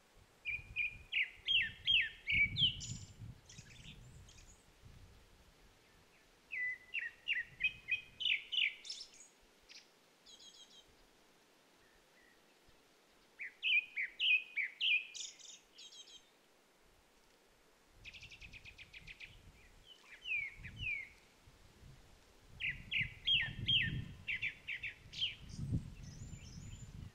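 Grey-backed thrush singing: about five bouts of quick, clear whistled phrases, spaced a few seconds apart, with a brief rattly buzz in the middle. A low rumble sits under the first and last bouts.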